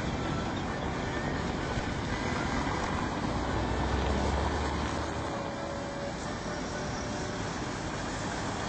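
Street traffic noise with a tram in the mix, a steady rumble of vehicles. A heavier low rumble swells about three seconds in and eases off about two seconds later.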